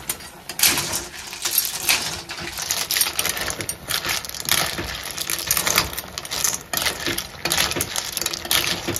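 Steel ladle stirring whole snails in their shells in an aluminium kadai: shells clink and rattle against each other and the pan in quick, irregular clicks.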